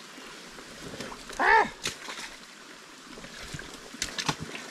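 Wet mud and water splashing and squelching around a motorcycle bogged in a flooded rut, over a steady wash of running water. About a second and a half in comes a short strained grunt of effort, and near the end a few sharp knocks.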